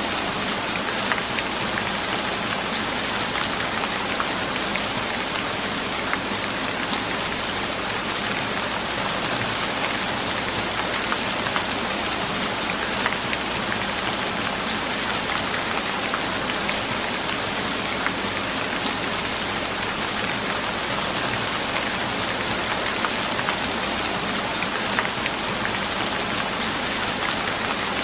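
Steady rain falling on a surface, an even hiss with many small drop ticks throughout.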